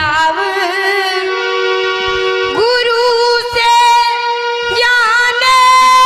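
A young girl sings a Jikdi bhajan, a Braj folk devotional song, to her own harmonium accompaniment. She holds long, ornamented notes over the harmonium's steady reed tones, all amplified through a microphone.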